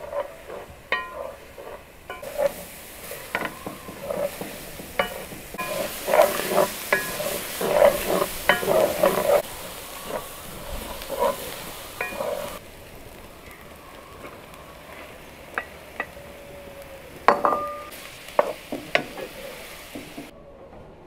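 A wooden spoon stirring food in a metal frying pan, knocking and scraping against the pan many times, while the food sizzles. The sizzling is loudest in the middle and drops off suddenly around halfway through.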